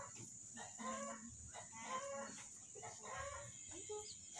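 Chickens clucking: a faint string of short calls, several a second.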